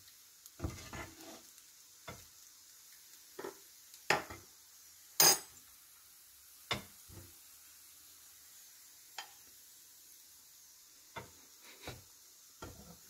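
A ladle knocking and scraping against an aluminium pressure-cooker pot and a ceramic bowl as thick broth is served: about a dozen separate clinks and scrapes, the sharpest about five seconds in.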